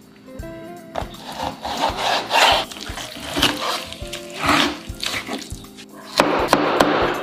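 Kitchen knife cutting raw chicken and carrot on a wooden chopping board: several rasping slicing strokes about a second apart, with light knocks of the blade on the board, over background music. Near the end a louder steady rushing noise takes over.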